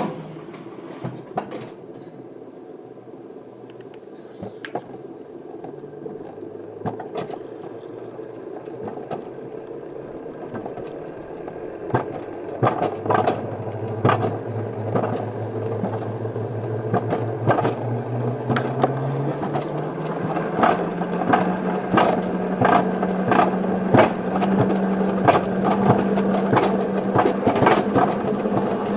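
Wiegand alpine coaster sled running along its tubular steel rails, the wheel hum climbing in pitch and getting louder as it gathers speed, with many sharp clacks and rattles.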